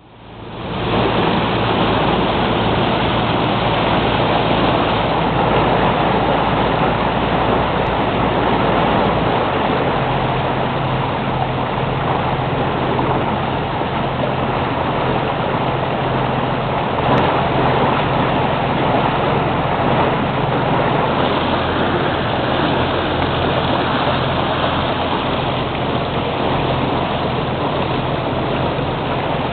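Lobster boat under way: its engine running steadily with a low drone, over a constant rush of water along the hull. The engine's low note shifts about nine seconds in.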